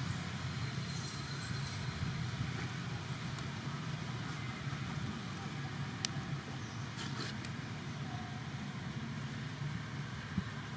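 Steady low rumble of an engine running, with a few faint clicks.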